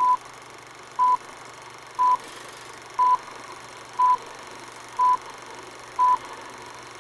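Film-leader countdown sound effect: a short, identical beep once a second, seven in all, over a steady low hiss and hum.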